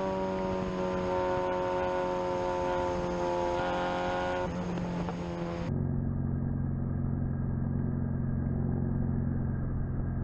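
Open-wheel race car's engine heard from the cockpit, running at steady revs with its pitch easing down slowly. About halfway through it turns abruptly into a lower, duller steady drone.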